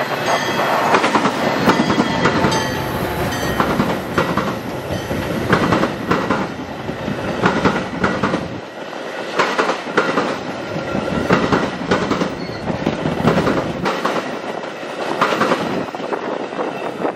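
Metra commuter train of stainless-steel bilevel coaches passing close by: a continuous rumble of steel wheels on rail, with repeated clickety-clack as the wheel trucks cross rail joints.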